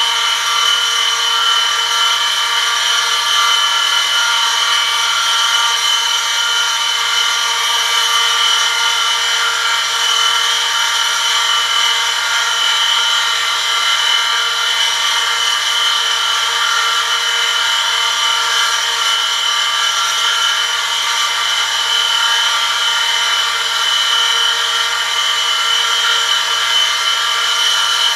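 Metal-on-metal friction test rig running: an electric motor spins a shaft against an oil-lubricated metal test sample held under a 1 kg lever load, giving a steady high-pitched whine with a low motor hum beneath it.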